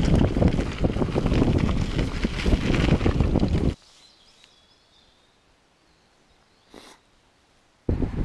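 Commencal Meta HT hardtail mountain bike ridden over a dirt forest trail, heard from a handlebar-mounted action camera: loud continuous rattling and clattering with tyre rumble and wind on the microphone. About four seconds in it cuts off abruptly to near silence with a faint chirp, and the riding noise starts again sharply near the end.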